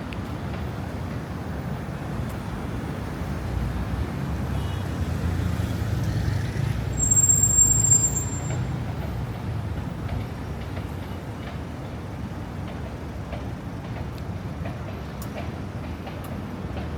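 City street traffic with a steady low rumble that builds as a heavy vehicle passes close by, peaking about seven seconds in with a brief high-pitched squeal, then settling back to the general hum of traffic.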